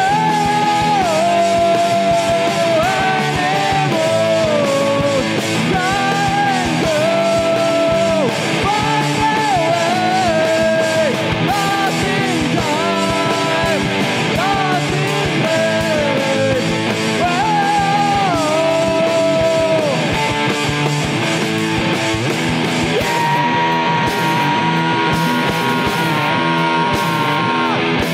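Rock band playing loud: a lead electric guitar line bending and sliding between notes over drums and bass, settling on one long held note about 23 seconds in.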